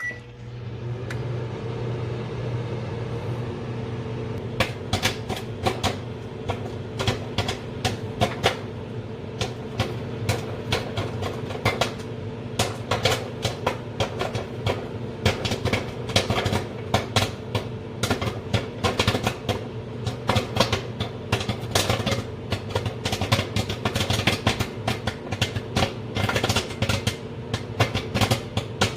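Microwave oven starting up and running with a steady hum, and from about four seconds in, a bag of microwave popcorn popping in it: sharp, irregular pops and crackles that grow more frequent.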